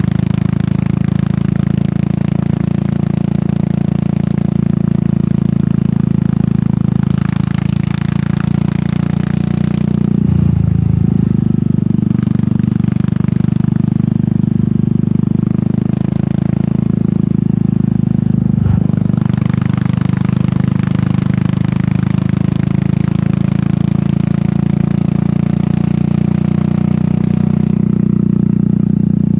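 Royal Enfield Meteor 350's single-cylinder engine running steadily through an aftermarket sport exhaust while riding. A brief low thump comes about ten seconds in and another about nineteen seconds in.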